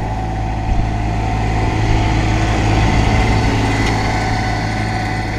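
Engine of a beach-cleaning utility vehicle with a tipping dump bed running steadily as it drives past over the sand, growing louder toward the middle as it passes.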